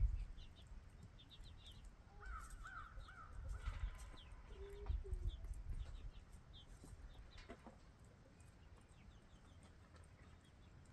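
Birds calling: a quick series of four short calls about two seconds in, a brief lower call a little later, and faint high chirps from small birds scattered through.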